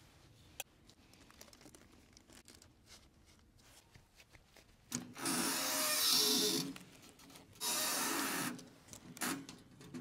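Rasping scrapes: two long strokes of about a second each, starting about halfway through, then a short third stroke near the end. Before them, only a few faint clicks.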